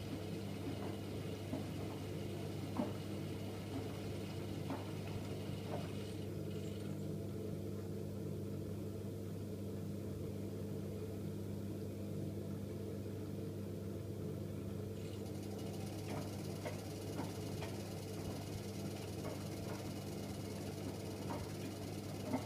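AEG Öko-Lavamat 8650 front-loading washing machine running mid-cycle: a steady motor hum with scattered light clicks. A higher hiss fades out about six seconds in and comes back about fifteen seconds in.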